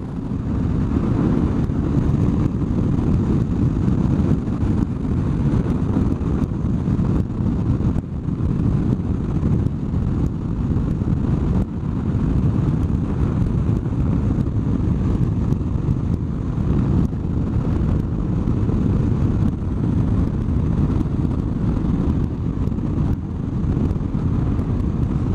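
Steady wind rush mixed with the running of a BMW R1100RS boxer-twin motorcycle riding along at an even speed.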